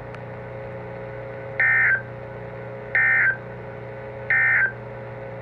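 Three short bursts of EAS/SAME digital data tones, each about a third of a second and about 1.4 s apart: the end-of-message signal closing a NOAA Weather Radio weekly test broadcast. A steady low hum runs underneath.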